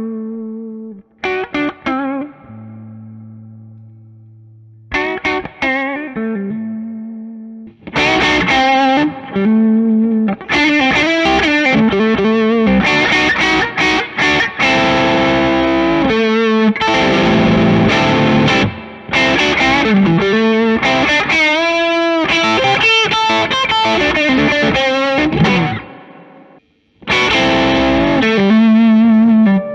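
Electric guitar with humbucking pickups playing a high-gain rock riff, with ringing chords and then fast, busy playing. It is heard first through the amp alone, then through the Bluesbreaker side of a Ceriatone Horsebreaker overdrive with its gain at maximum, and after a short break near the end through a Browne Protein overdrive.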